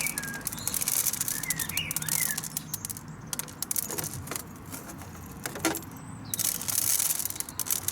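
Loose bird seed rattling and clicking as it is pressed and patted by hand into a lard-coated pine cone over a tray, with irregular small clicks and brief rustles throughout. A bird chirps a few times about two seconds in.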